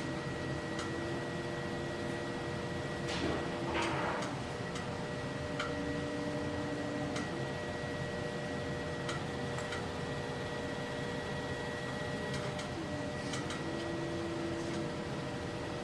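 Electric potter's wheel running with a steady motor hum. Its lower tone dips and shifts in pitch a few times, about three seconds in and again near the end, as the wheel speed changes. A few light clicks and a brief wet swish come from hands working the clay.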